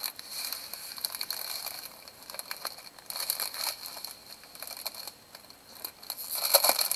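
Plastic packaging crinkling and crackling as a wrapped strip of bagged diamond-painting drills is handled, in uneven bursts, loudest near the end.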